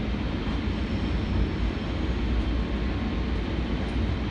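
Steady low rumble and running noise of a Kinkisharyo P3010 light rail vehicle under way on the track, heard from inside the front of the car.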